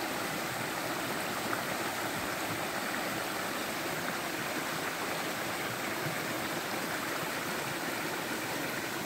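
Small forest creek swollen by heavy rain, running fast with a steady sound of flowing water.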